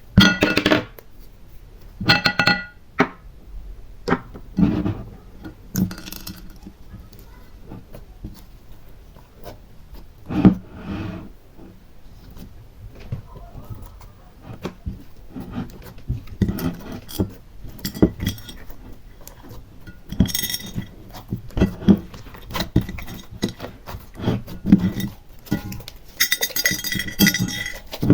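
Small hard decorations and containers clinking and tapping as they are handled, a few of the clinks ringing briefly with a glassy tone.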